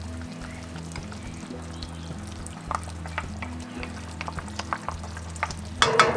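Peach sauce simmering in a cast iron pot, bubbling and sizzling with scattered small pops, while a wooden spoon scrapes peach jam in from a glass jar. A sharp knock with a short ring comes near the end.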